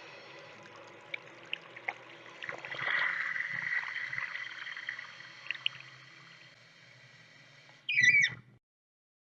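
Bathroom sink after the faucet is shut off: water trickling and dripping in the basin and running down the drain, with a few sharp drips about a second in and a louder gurgling swell around three seconds in. A brief, loud, squeaky sound comes near the end, then the sound cuts off.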